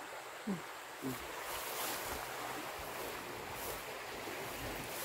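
Steady outdoor hiss with rustling of tall weeds and grass being pushed aside, the rustle swelling now and then. Two short, low falling sounds come about half a second and a second in.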